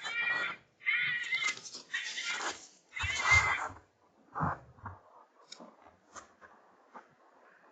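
Four high, wavering screaming animal calls in quick succession over the first four seconds, of the kind a fox caller or a fox makes, then only a few faint ticks.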